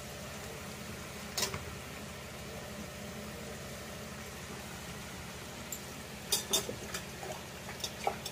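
Curd-and-rice dough balls deep-frying in hot oil in a steel kadhai: a steady sizzle with sharp pops and spits, one about 1.4 s in and a cluster of them near the end.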